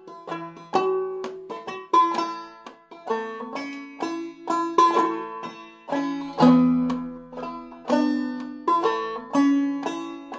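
Five-string banjo played clawhammer style in double B-flat tuning, a slow waltz melody of plucked notes that ring and die away, with a strong accent about once a second.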